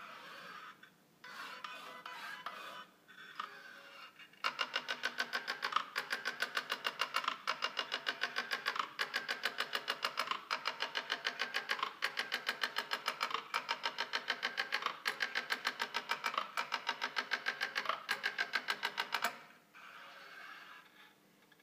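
Linear-motor X-Y positioning table making rapid point-to-point moves: a fast, even series of sharp ticks, several a second, for about fifteen seconds. It is preceded and followed by a quieter electrical hum.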